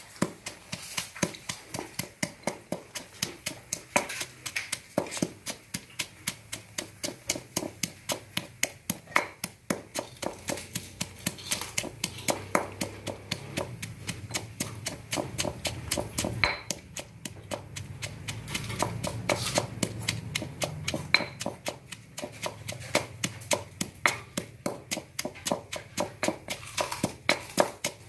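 Stone pestle pounding red chillies with salt in a stone mortar: a steady run of thuds, about three a second, as the chillies are crushed into a paste.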